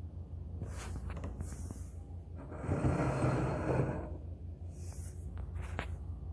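Handling noise: rubbing and scraping as the ceramic incense burner is gripped and shifted on the table and the phone is moved, a louder scrape in the middle and a few light knocks near the end, over a steady low hum.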